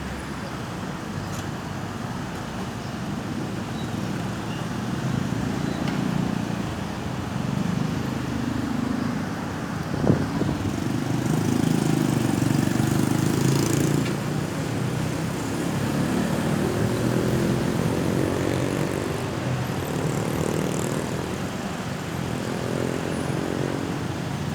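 Road traffic: motor vehicle engines running and passing, swelling and fading, with a single sharp knock about ten seconds in.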